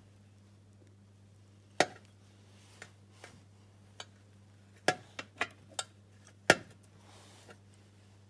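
A glass beaker being handled and tilted by hand: a scatter of light clicks and knocks of glass, two of them louder, about two seconds in and near the end. A steady low electrical hum runs underneath.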